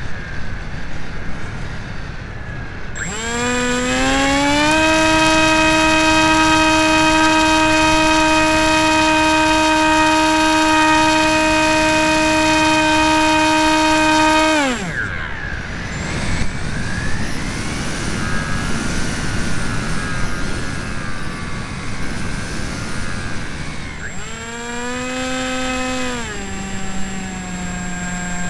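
RC plane's brushless electric motor and propeller whining. It throttles up with a rising whine about three seconds in and holds a steady high whine. It cuts off about halfway, leaving only wind rushing past the airframe as it glides. Near the end the motor comes back on and settles at a lower, steady part-throttle pitch.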